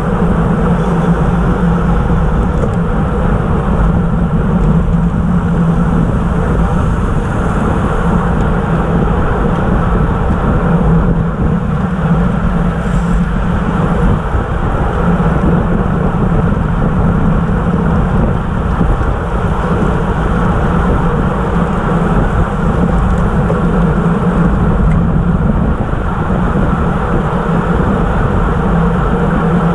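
Steady rush of wind over a bike-mounted camera's microphone, with tyre hum from a pack of road bikes riding at about 25 mph on asphalt.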